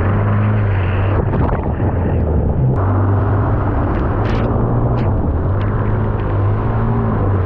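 Honda Recon 250 ATV's single-cylinder engine running steadily as it drives through flooded mud, with muddy water splashing and a few sharp spatters in the middle.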